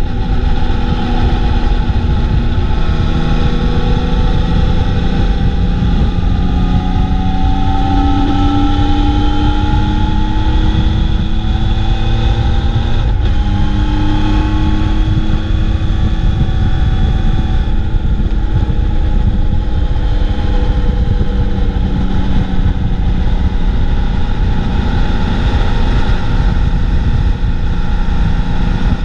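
Motorcycle engine under way, heard from a camera mounted on the bike, with heavy wind rumble on the microphone. The engine note rises slowly as the bike pulls, drops back sharply about thirteen seconds in, as at a gear change, then rises again.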